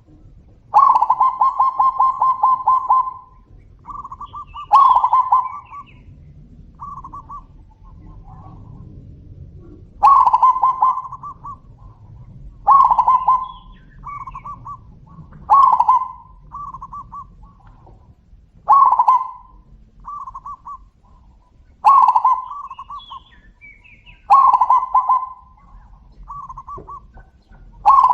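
Zebra doves (perkutut) cooing back and forth: repeated loud, rolling, trilled coo phrases every two to three seconds, each trailed by a few shorter, softer coos.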